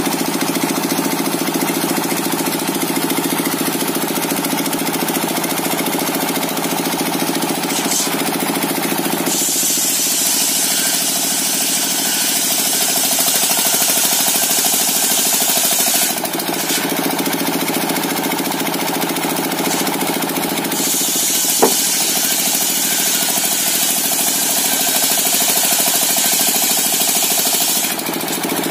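Engine-driven circular saw running steadily, its blade cutting through coconut wood twice, each cut lasting about seven seconds and adding a loud high hiss over the engine. A single sharp click comes shortly after the second cut begins.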